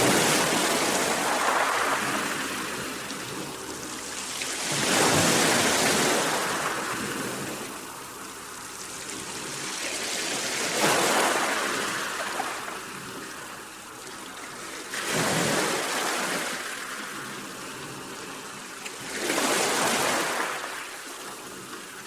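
Sea waves breaking and washing up the shore, each surge of surf hissing up and fading away, about five waves four to five seconds apart.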